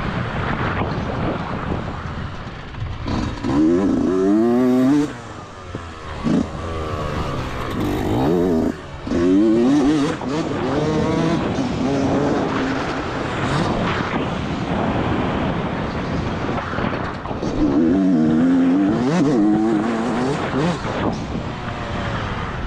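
Yamaha YZ125 two-stroke single-cylinder engine under a rider, revving up and falling off again and again as the throttle is worked. It is loudest in three hard pulls, about three, nine and eighteen seconds in, and the throttle is chopped sharply twice between the first two.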